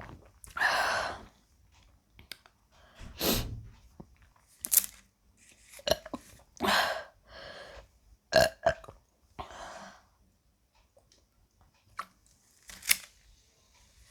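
A woman burping again and again from the fizzy Sprite: a string of about seven separate burps with short pauses between them, the longest near the start.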